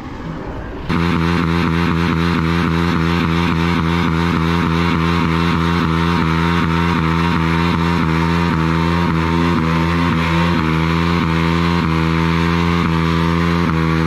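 KTM Duke's single-cylinder engine held at high revs during a rear-wheel burnout, with the rear tyre spinning on the tarmac. It comes in abruptly about a second in and pulses at an even rhythm of about three beats a second.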